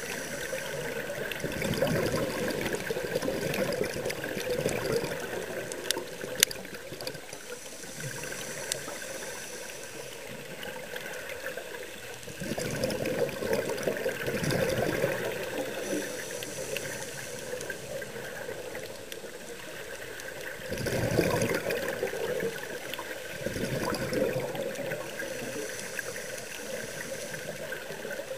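Scuba diver breathing through a regulator underwater: a thin hiss on each inhale and a rush of exhaled bubbles a few seconds long, repeating about every eight seconds. A sharp click about six seconds in.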